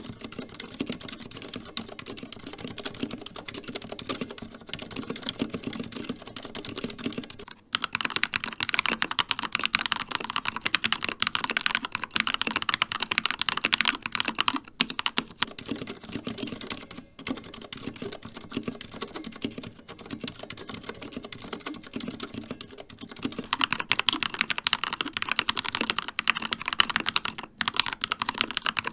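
Continuous typing on mechanical keyboards, alternating between Cherry MX Silent Red linear switches, a quieter and duller muffled patter, and Gateron Red linear switches on a Keychron K2, a louder and brighter clacking. The Silent Reds play first, the Gateron Reds take over at about 7 seconds, the Silent Reds return at about 15 seconds and the Gateron Reds at about 23 seconds.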